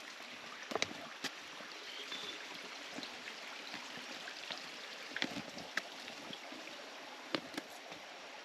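Footsteps on a forest trail, a few irregular steps, over a steady rush of flowing stream water.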